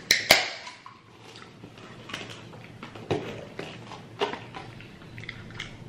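Crunchy hard taco shells being bitten and chewed close to the microphone: a sharp crunch just after the start, then scattered smaller crunches and chewing sounds.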